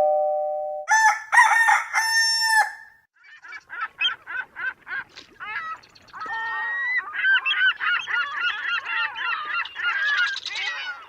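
Domestic fowl calling: a long crow-like call about a second in, then a run of short, rapid calls, and from about seven seconds many birds honking and cackling together before the sound cuts off suddenly.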